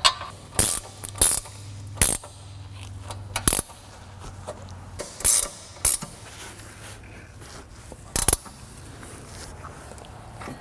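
Hand ratchet clicking in short bursts, about eight spread over ten seconds, as the bolts holding a new rear disc brake caliper to its mounting bracket are run in and tightened.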